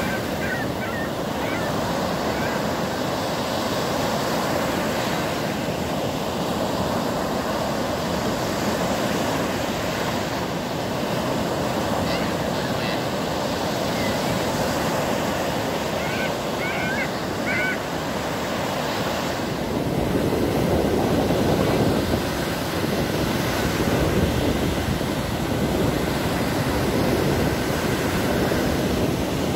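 Lake Michigan waves breaking and washing up a sandy shore, a steady rush of surf. A gull calls briefly a few times just past halfway, and about two-thirds in the surf becomes louder and deeper.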